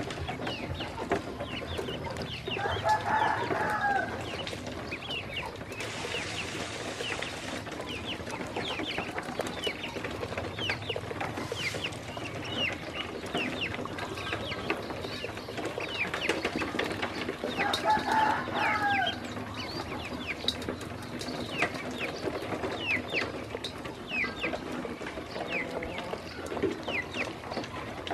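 A flock of ducklings peeping constantly, many short high peeps that fall in pitch. Twice, about three and eighteen seconds in, a longer, lower call sounds over them.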